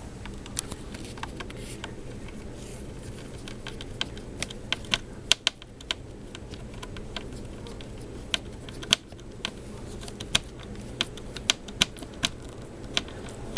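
Irregular sharp clicks and taps of small plastic and metal laptop parts being handled and fitted during reassembly, a few louder than the rest.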